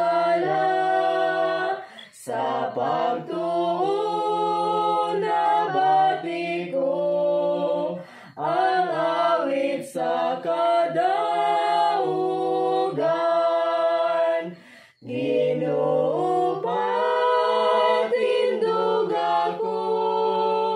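Two children and a woman singing a Cebuano hymn a cappella, with long held notes and brief breath pauses about 2, 8 and 15 seconds in.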